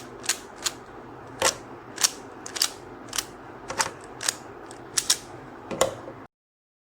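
QiYi Sail 3x3 speed cube being turned in trigger moves, its layers snapping into place with sharp clicks at about two a second, then the sound cuts off suddenly near the end.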